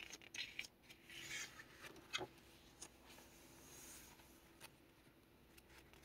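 Faint rustle and rub of a paper page being turned in a handmade junk journal, with a soft swish about a second in and a few light ticks.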